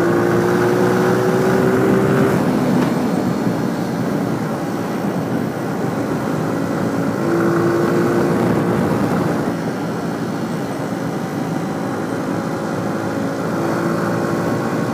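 Motorcycle engine running while riding, under a steady rush of wind on the helmet microphone. The engine note climbs a little over the first two seconds, drops back, and comes up again around seven seconds in and near the end.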